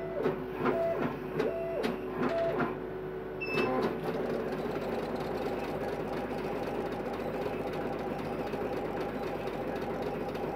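CO2 laser cutter engraving MDF: its gantry makes a few short whining moves with a couple of clicks, then settles about four seconds in into a continuous fast buzz as the head sweeps rapidly back and forth, over a steady hum.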